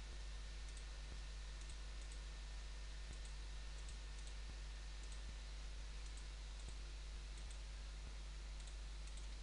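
Computer mouse button clicking, faint and irregular, about one to two clicks a second as pen-tool mask points are placed, over a steady low electrical hum and hiss.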